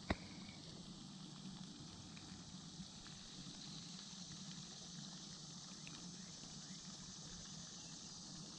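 Faint outdoor ambience with insects chirping steadily, and one sharp click just after the start.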